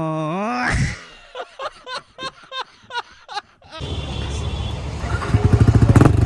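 A short sung or musical clip cuts off, a string of about eight quick rising chirps follows, and about four seconds in a Yamaha R15's single-cylinder engine starts sounding through an aftermarket exhaust. The engine runs with an uneven, pulsing beat that grows louder toward the end.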